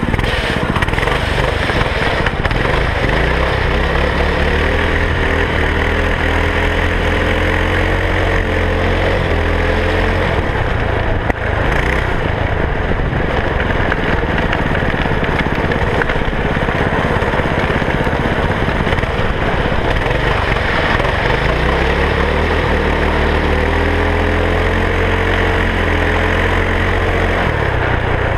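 Go-kart's small engine running hard under the driver. Its pitch climbs steadily twice as the kart accelerates, with a brief drop about eleven seconds in.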